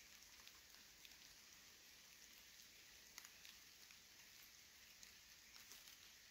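Near silence: a faint steady hiss with a few soft, scattered ticks.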